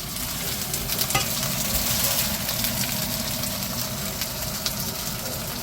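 Kimchi pancake batter frying in oil in a pan, sizzling steadily with fine crackles.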